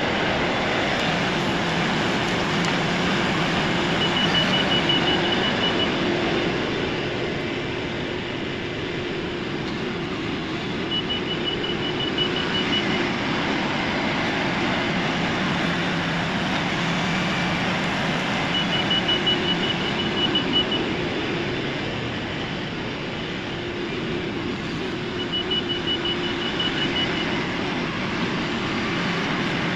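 LS MT573 tractor's diesel engine running, its low note swelling and easing every few seconds as it works. A faint, high, rapid beeping comes in four times, about two seconds each time.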